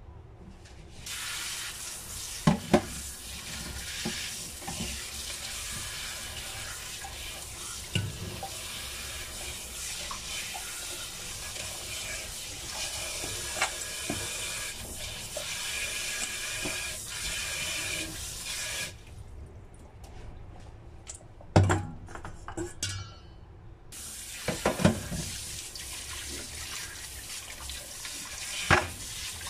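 Kitchen tap running into a stainless steel sink as vegetables are rinsed under the stream. There are occasional knocks and clinks. The water stops for a few seconds about two-thirds of the way through, with a couple of louder knocks, then runs again.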